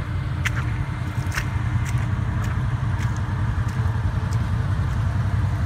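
Engine of a side-by-side UTV stuck in mud, running steadily with a low rumble, with a few sharp clicks scattered through it.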